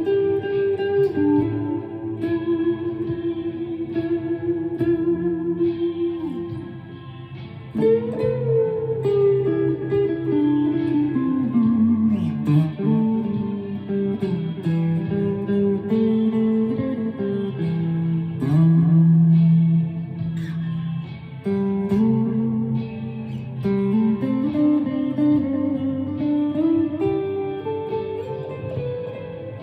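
Chapman ML3 Pro Traditional electric guitar with Seymour Duncan Hot Tele pickups played in an ambient style: a slow line of held, ringing single notes, with a passage that slides down in pitch about eight to thirteen seconds in.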